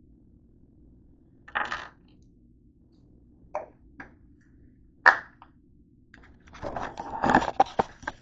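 Short knocks and clicks of small hard items being set down on a tabletop, a second or two apart. Near the end comes a denser run of knocks and rubbing as the camera is handled and moved.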